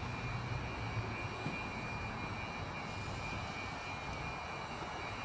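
Steady low rumble of parking-garage background noise, with a faint steady high-pitched buzz from the overhead lights.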